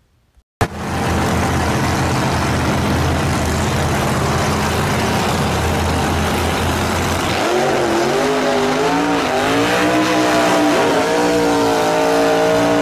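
Gasser drag cars, a 1941 Willys pickup and a 1951 Anglia, both with superchargers, running loudly at the strip. From about seven and a half seconds in, a revving engine note rises and wavers over the din.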